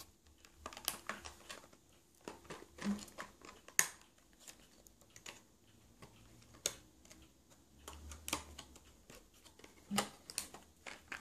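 Light handling of small items and their packaging: scattered soft clicks and taps with faint rustling.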